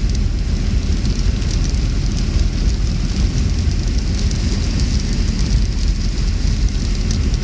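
Rain falling, a steady hiss with fine patter, over a strong continuous low rumble.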